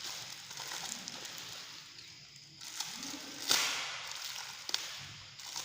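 Handling noises while unpacking fishing tackle: rustling of packaging, a sharp swish about three and a half seconds in, and a short click about a second later.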